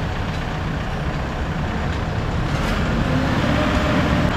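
Kia Bongo III's turbo-intercooled diesel engine running steadily with a low rumble, its pitch rising a little about three seconds in.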